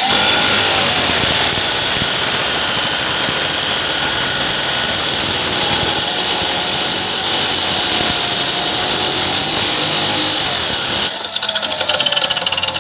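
A power tool running with a steady hiss and whine over a running engine; the tool stops about eleven seconds in, leaving the engine's rapid pulsing.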